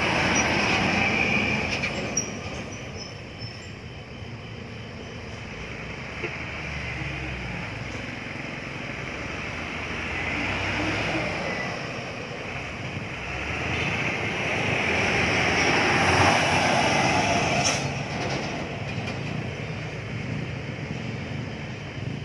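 Road traffic going past: truck engines and tyre noise, swelling twice as vehicles pass, about ten and sixteen seconds in.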